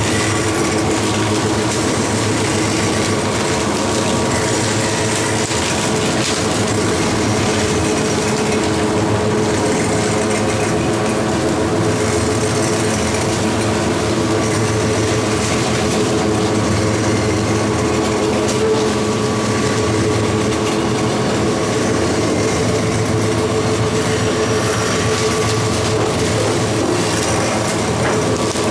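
Sugarcane roller crusher mill running steadily while crushing cane. It makes a loud, constant mechanical noise with a steady hum at several pitches.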